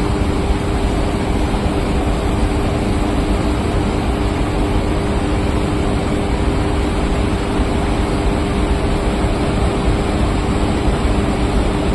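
Steady, loud rush of water pouring through a dam's open flood gates, with a steady low hum underneath.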